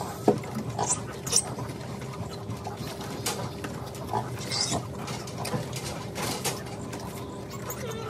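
Piglets giving short, high squeals every second or so, over a steady low hum.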